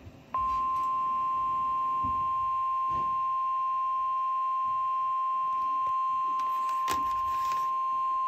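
NOAA Weather Radio 1050 Hz warning alarm tone, the signal that a warning broadcast, here a flash flood warning, is about to follow. One steady, unbroken tone starts about a third of a second in and holds at an even level, with a single sharp click about seven seconds in.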